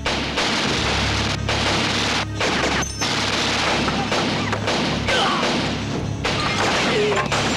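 Action-film shootout sound mix: near-continuous smashing and crashing with heavy impacts, over a film score with a steady low note.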